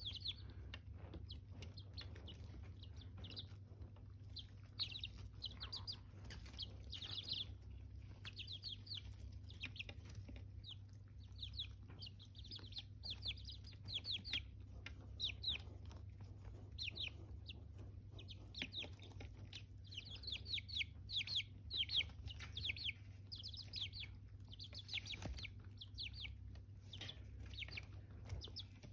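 Young chickens, almost a month old, peeping in a brooder: many short, high, faint peeps, sometimes several in quick succession, over a steady low hum.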